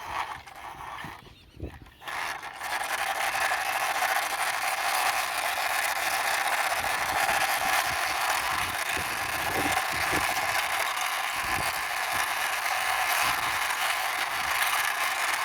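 Toy army helicopter pushed along a floor by hand, giving a steady rolling, rattling scrape that starts about two seconds in after a few light handling knocks.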